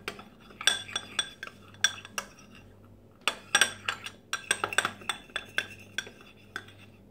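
Metal teaspoon stirring in a glass bowl, clinking and scraping against the glass in quick irregular strokes, with a pause of about a second partway through. The spoon is working baby powder and rose water together into a paste.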